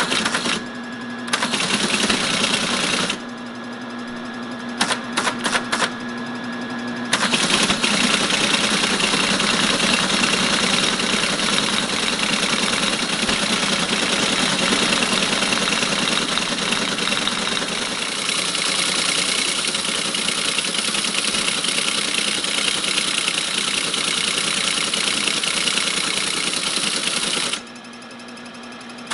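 Teletype ASR 33 typing and printing at 110 baud: short bursts of keystrikes in the first seven seconds with a steady hum between them, then about twenty seconds of continuous printing as whole lines come out. The printing stops shortly before the end, leaving only the hum.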